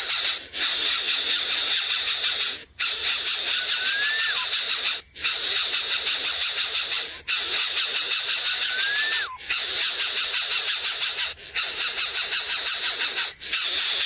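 A loud buzzing drone with rapid pulsing, broken by a brief dip about every two seconds. A short whistle that rises and then falls recurs every few seconds.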